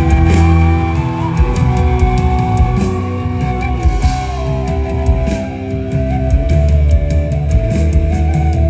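Live rock band playing an instrumental passage, loud, with an electric guitar lead bending its notes over the rest of the band.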